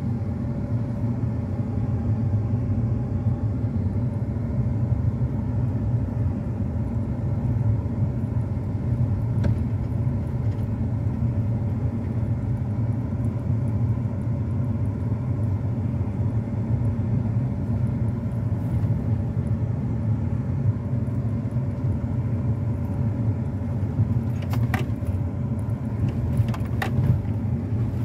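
Steady low rumble of a car's engine and tyres heard from inside the cabin while driving slowly, with a few light clicks or rattles near the end.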